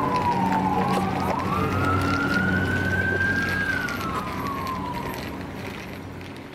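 Fire engine siren wailing in a slow glide down, back up, and down again, over a low engine drone beneath. It fades out near the end.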